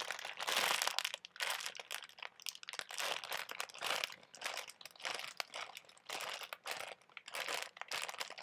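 Plastic packaging crinkling in irregular rustles as a slow-rising foam squishy inside it is squeezed over and over.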